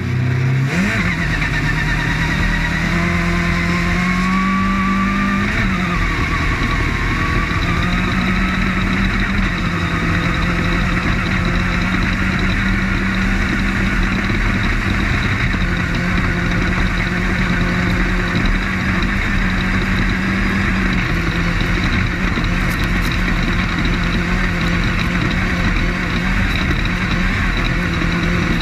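Off-road race car's engine heard from onboard, running hard and continuously under a dense bed of rumble and wind noise. It revs up in the first couple of seconds, and its pitch steps up and down a few times as the car goes.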